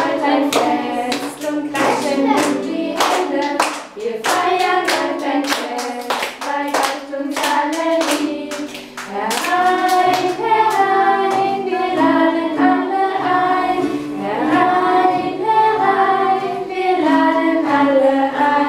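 A group of children and an adult singing a song together to an acoustic guitar, with hand claps in time through about the first half.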